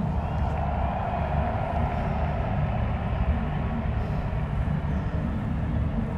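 Steady low rumbling noise with a mid-range hiss over it and no distinct events.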